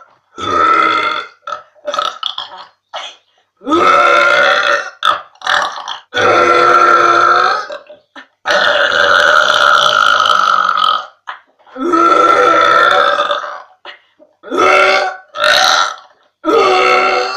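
A young woman burping loudly over and over: a string of about a dozen deliberate belches, a few short ones at first, then several long drawn-out ones lasting up to two or three seconds each, then shorter ones again near the end.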